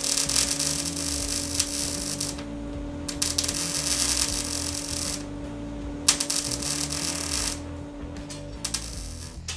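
MIG welder crackling as it welds steel car-body sheet metal. It runs in three bursts of two to three seconds with short breaks between them, and goes fainter near the end.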